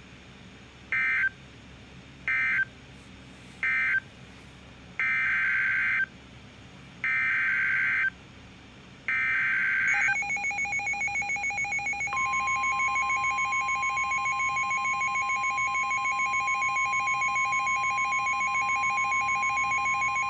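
NOAA Weather Radio SAME digital data bursts: three short screeching end-of-message bursts, then three longer header bursts announcing a new Severe Thunderstorm Warning. About ten seconds in, rapidly pulsing alert tones begin. About two seconds later a steady 1050 Hz weather alert tone joins them and holds.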